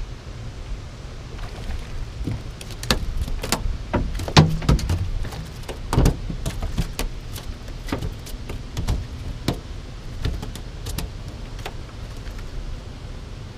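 Clicks and knocks of a spinning rod and reel being handled and cast, in an irregular run that is loudest near the middle, over a steady low rumble.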